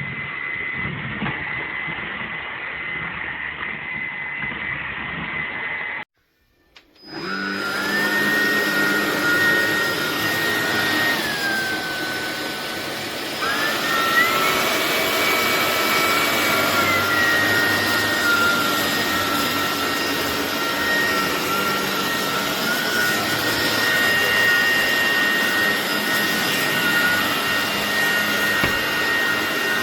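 Hoover ONEPWR WindTunnel Emerge cordless stick vacuum running with a steady motor whine. It cuts out briefly about six seconds in, then comes back louder. Its pitch dips and rises once before settling.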